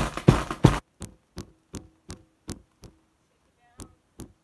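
A filled gallon Mylar bag of sugar being knocked and jolted on the counter to settle the sugar: three loud knocks in the first second, then lighter even taps about three a second, with a short pause about three seconds in.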